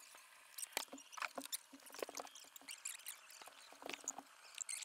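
Faint irregular clicks and scuffs of an angler moving about a boat's carpeted front deck and handling a fishing rod and reel, with a few faint high squeaks near the end.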